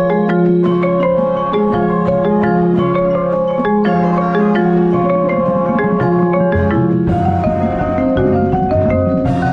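Music with a quick melody of short pitched notes on a mallet instrument such as a marimba; a deeper bass part comes in about two-thirds of the way through.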